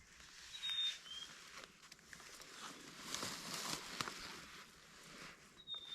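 Rustling and scraping with scattered light clicks, loudest a little past the middle, and two brief high bird chirps about a second in.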